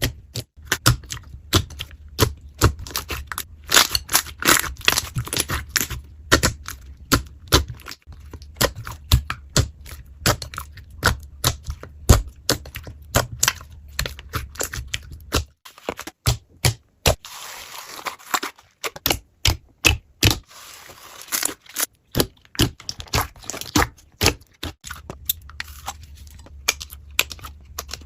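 Slime being squeezed and pressed by hand, giving a rapid, irregular run of sharp clicks and pops, with two brief stretches of softer hiss about two-thirds of the way through.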